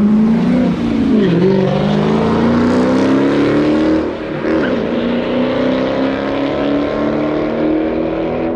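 Dodge Challenger's V8 at full throttle launching down a drag strip. The engine note climbs, drops sharply at a gear change about a second in and again about four seconds in, and climbs again through the following gears.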